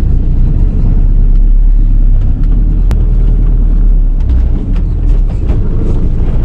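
Volkswagen T3 van's engine running at low revs, heard from inside the cab as a steady low rumble, with a sharp click about three seconds in.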